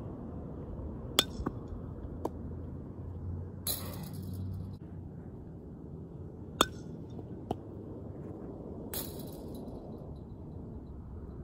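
Sharp clinking knocks in two groups about five seconds apart, each group followed a second or so later by a short hissing rush, over a steady low rumble.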